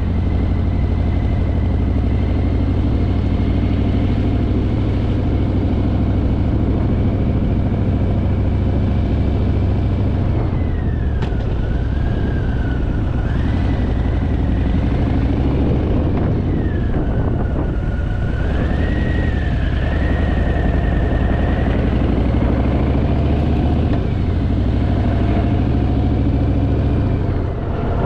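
Harley-Davidson Fat Boy's V-twin engine running steadily at cruising speed under a continuous rush of riding wind. A thin high whistle sits over it and dips and wavers in pitch twice through the middle.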